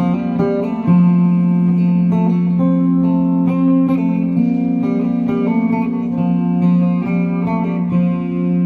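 Background music led by plucked guitar, with sustained chords and a steady run of notes.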